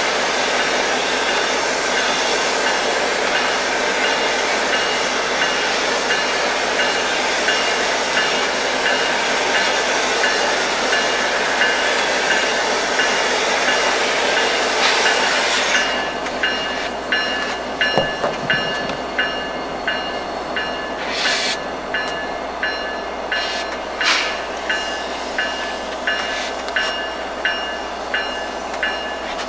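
A train passing on the rails. For the first half there is a loud, steady rushing noise that cuts off suddenly about halfway through. After that the wheels click rhythmically over rail joints, about once a second or a little faster, with a steady high-pitched wheel squeal.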